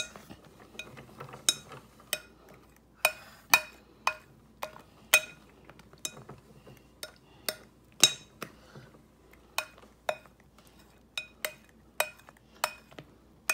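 A utensil clinking against the side of a mixing bowl as a creamy ice cream base is stirred by hand: sharp, ringing clinks about twice a second, unevenly spaced.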